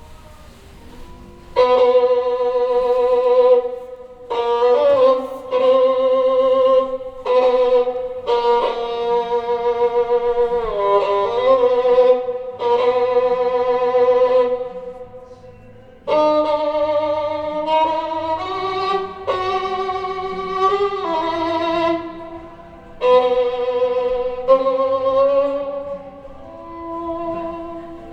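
Recorded violin music played back over Børresen Z2 Cryo Edition hi-fi loudspeakers: long held notes with vibrato, in phrases broken by short pauses.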